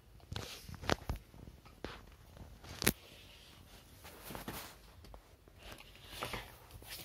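A dog chewing and gnawing on a small toy on a hard floor: scattered sharp clicks and soft rustling, the loudest clicks about a second in and just before three seconds.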